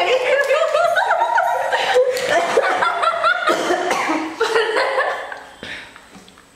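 Two women laughing hard together. The laughter dies away over the last second or two.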